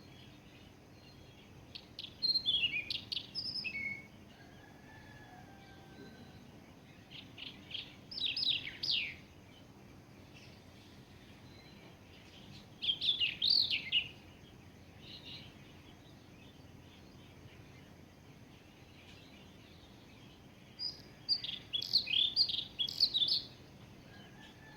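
A songbird singing four short phrases of quick, high chirps, each a second or two long, separated by pauses of several seconds. A fainter, drawn-out whistle is heard about five seconds in.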